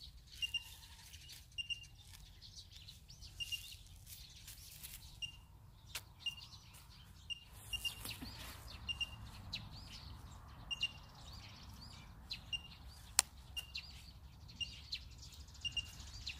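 A small bird chirping over and over in short paired notes, about once a second, with a faint rustle of plant stems being picked by hand. A single sharp click sounds about three-quarters of the way through.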